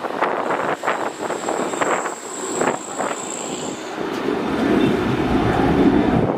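Jet airliner engine noise: a thin, steady high whine for the first few seconds, then a low rumble that grows louder over the last couple of seconds. Strong wind buffets the microphone throughout.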